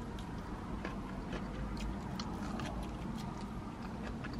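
Close-up chewing of a rib of street corn: a run of small, irregular mouth clicks and crunches over a low, steady hum.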